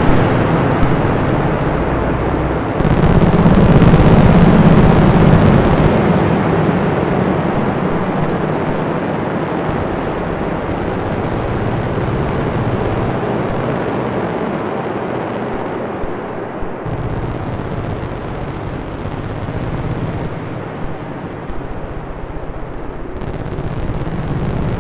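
Dense, rumbling noise drone from a Bugbrand modular synthesizer run through an Electro-Harmonix Memory Man Hazarai delay. A hissy upper layer switches on and off every three to four seconds over a steady low rumble.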